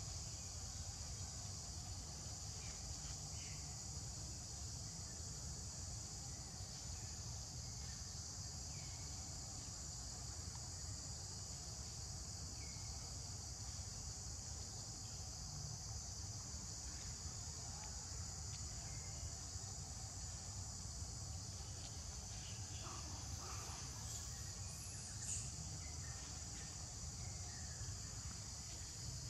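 Steady high-pitched insect chorus droning without a break, over a constant low rumble. A few faint chirps come through about three quarters of the way in.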